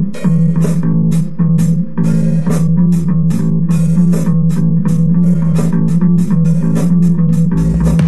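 Music: plucked guitar and bass guitar over a steady drum beat, with high cymbal-like strikes about three times a second.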